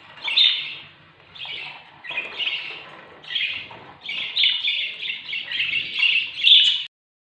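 Budgerigars chirping and chattering in short bursts, coming thicker and nearly continuous after about four seconds, then stopping suddenly near the end.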